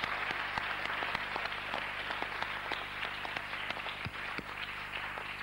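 Audience applauding: many hands clapping at once in a dense, steady spread of claps.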